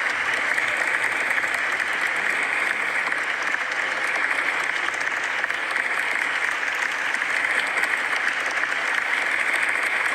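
Crowd applause: many people clapping steadily without letting up.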